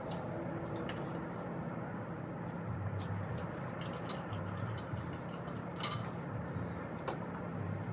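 A few scattered light clicks and knocks of hand tools and parts being handled on the engine, over a steady low hum.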